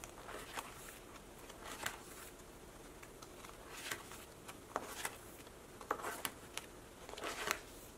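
Plastic pocket pages in a ring binder being turned one after another, each turn a brief, soft rustle of plastic sleeves and paper.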